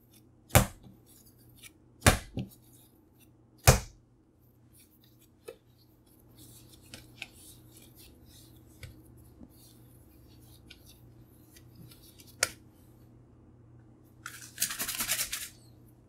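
Naan dough being kneaded by hand on a countertop: three sharp knocks in the first four seconds, about a second and a half apart, as the dough is pressed and thumped down. Then faint scratching and patting while it is shaped into a ball, one more knock, and a short scratchy rustle near the end.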